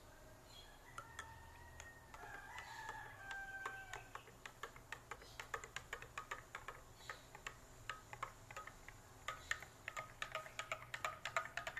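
Metal spoon clinking against a drinking glass as milk powder is stirred into water: quick light taps starting about four seconds in, coming faster and louder near the end.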